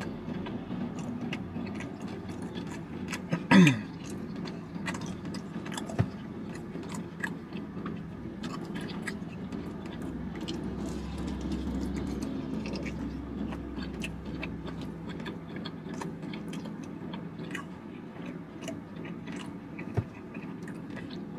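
Close-up chewing and biting of fried chicken wings: wet mouth clicks and smacks throughout. A brief loud sound falling in pitch comes about three and a half seconds in, and sharp knocks come near 6 seconds and near the end.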